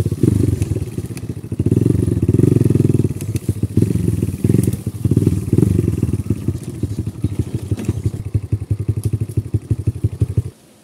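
Dirt bike engine running at low revs, its loudness rising and falling with the throttle. It cuts off abruptly about ten and a half seconds in.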